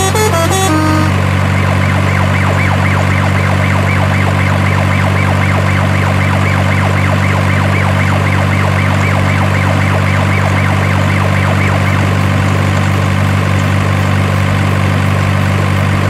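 Steady low engine drone with a fast up-and-down warbling siren tone over it; the siren stops about twelve seconds in. A few musical notes end about a second in.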